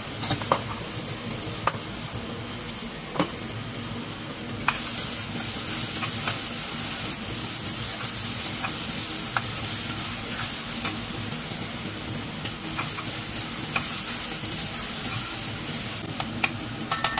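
Diced potatoes and red onion sizzling in a stainless steel saucepan, stirred with a spatula that clicks against the pan every second or two.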